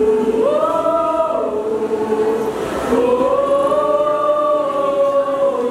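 Group of young mixed voices singing together in long held notes: one swells up in pitch about half a second in, and a longer held note starts about three seconds in.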